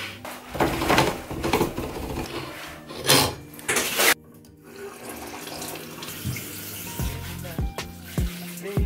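Shower water running and spraying, with loud surges, until it cuts off suddenly about four seconds in. Soft background music with plucked notes follows over faint running water.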